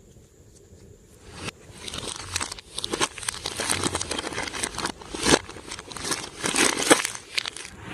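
Glossy slime being squished and stretched by hand, a dense run of sticky crackles and small pops that starts about a second and a half in, with the loudest snaps near the middle and near the end.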